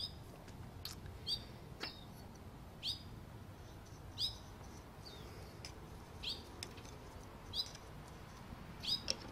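A bird chirping repeatedly in the background: short high chirps spaced about a second apart, around ten in all, with a few faint clicks.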